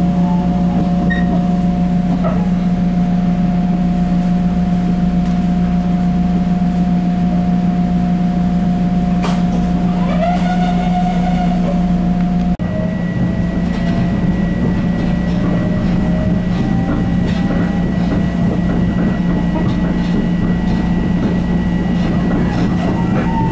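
Interior noise of an electric commuter train rolling slowly along a station platform: a steady low hum with a constant whine, a brief squeal about ten seconds in, and a short dropout just past halfway.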